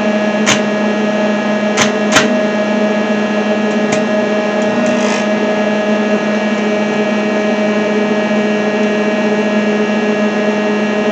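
Lincoln AC arc welder's transformer humming steadily under power, with a few short sharp crackles in the first couple of seconds.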